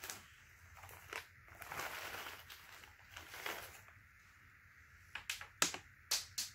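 Plastic snack bag rustling softly as it is handled, then a few short sharp clicks about five seconds in as small crunchy snack pieces are shaken out of it into a palm.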